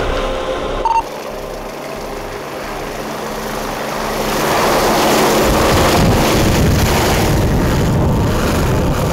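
Medical helicopter flying low overhead, its rotor and engine noise growing steadily louder over several seconds into a heavy low rumble. A different sound cuts off abruptly about a second in.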